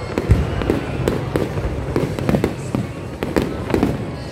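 Aerial fireworks display: shells bursting in quick, irregular succession, about three bangs and crackles a second, the loudest just after the start.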